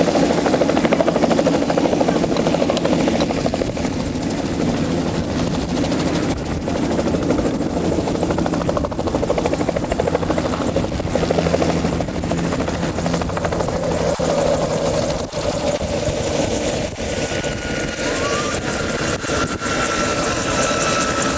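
Helicopter running at close range, its rotor beating steadily; a high, steady whine joins about two-thirds of the way through.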